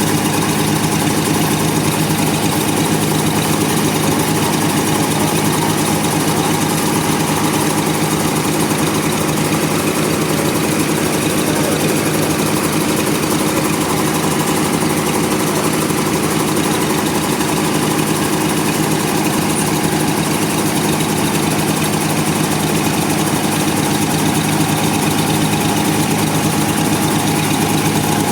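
Sawmill engine running at a steady speed, an unchanging mechanical drone with no break.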